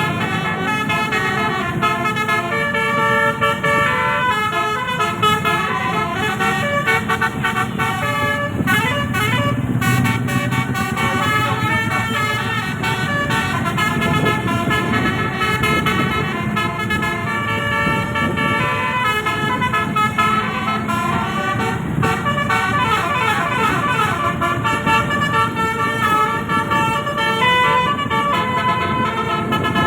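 Bus telolet horn, a roof-mounted set of 18 air-horn trumpets, playing melodic runs. Several notes sound at once and change a few times a second, with some sliding notes later on.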